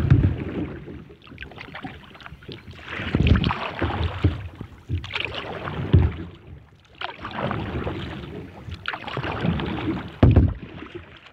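Kayak paddle strokes in calm water: the blades dip and splash in repeated bouts of hissing water every few seconds, with a few short low thumps.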